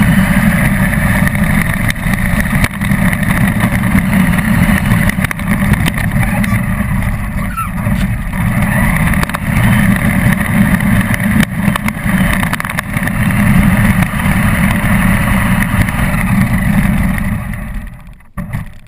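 Radio-controlled car running and driving, a loud steady rough rumble with a hiss above it that cuts off near the end.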